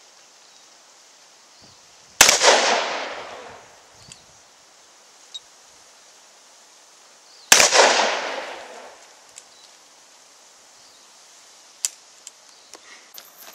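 Two handgun shots about five seconds apart, each followed by an echo that fades over a second and a half. A few faint clicks near the end.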